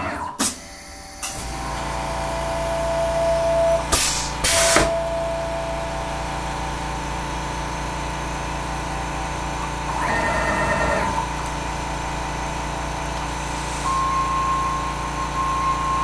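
CNC router doing an automatic tool change with its ATC spindle and pneumatic tool rack. Short sharp hisses of compressed air come twice near the start and twice about four seconds in, as the tool holder is released and clamped. A steady machine hum with a whining tone runs beneath, and a higher whine begins near the end.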